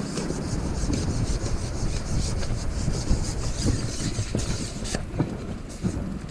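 Rubbing and scraping of a carbon fishing pole sliding back over the angler's legs and through his hands as it is shipped in to land a fish, with a few light knocks.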